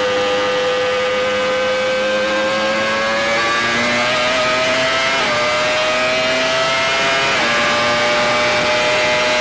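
Onboard sound of the Benetton's 3.0-litre Renault V10 Formula 1 engine at high revs under full throttle. Its high, steady note climbs slowly and dips briefly twice, about five and seven and a half seconds in, as the gearbox shifts up.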